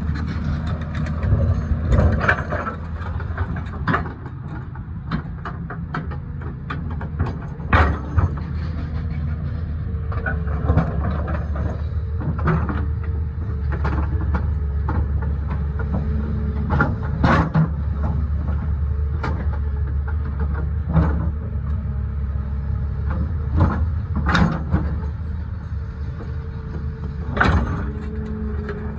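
Cat excavator's diesel engine running steadily, with a steady whine, and sharp knocks and rattles scattered throughout from the machine cutting into the mountainside.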